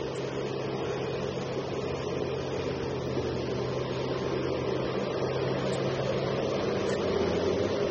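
Liebherr R 984C crawler excavator's diesel engine running under load with a steady hum while the machine swings, growing a little louder near the end.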